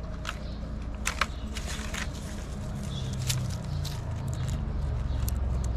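Short rustles and scuffs from hands handling a kitten and a plastic bag, with a cluster about a second in. They sit over a steady low rumble.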